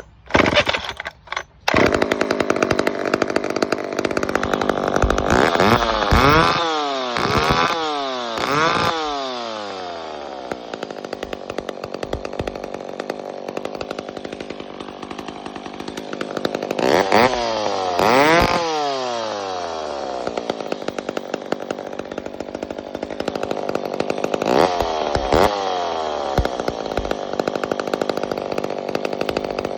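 McCulloch 1010 chainsaw's two-stroke engine catching after a couple of brief bursts about two seconds in, then running at idle with sharp throttle revs: four quick ones a few seconds in, two near the middle and one more later, each falling back to idle.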